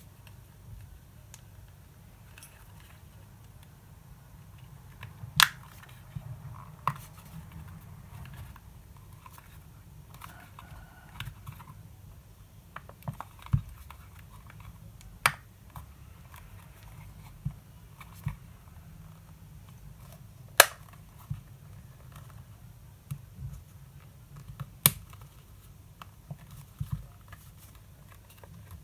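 Hands fitting and turning a rubber tyre on a DeAgostini Honda NSX model wheel: quiet rubbing and handling noise, with several sharp clicks scattered through.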